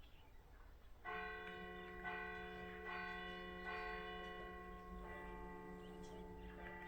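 Bells ringing, starting about a second in and struck again about once a second, several pitches held and overlapping.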